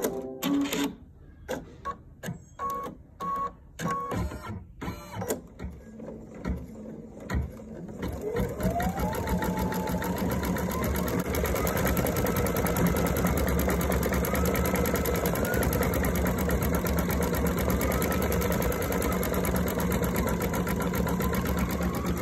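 Electric sewing machine: a few short runs and clicks at first, then from about eight seconds in it runs steadily at speed, its motor pitch rising as it picks up.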